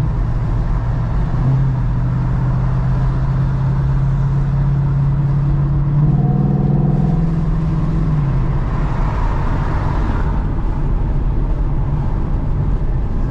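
2011 Mustang GT's 5.0 V8 running through Borla Pro XS mufflers with a steady exhaust drone. About six seconds in the note rises briefly in a short rev, then settles back to the steady drone.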